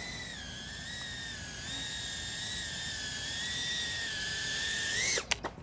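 FPV quadcopter's motors and four-bladed props whining with a steady, slightly wavering pitch, which rises sharply about five seconds in and then cuts off, followed by a couple of clicks as the drone comes down on a dead battery.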